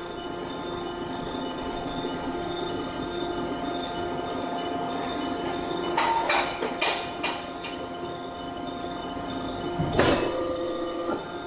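Hydraulic forging hammer working a hot billet: a heavy blow near the end, with a ringing tail. Earlier there is a quick run of four short sharp sounds about six seconds in, over a steady hum of machinery with several steady tones.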